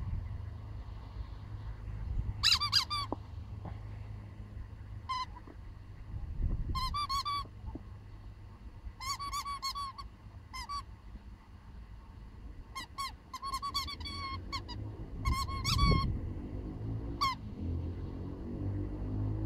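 Rubber toy chicken squeaking as a puppy chews on it: bouts of short, high squeaks, a few at a time in quick succession, with pauses of a second or two between bouts.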